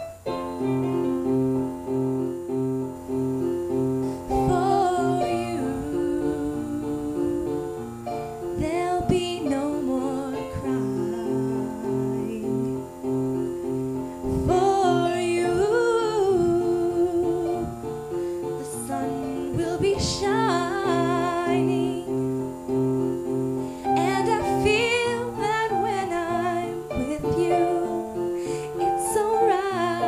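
A woman singing and accompanying herself on piano, playing steady repeated chords. Her voice comes in about four seconds in over the piano.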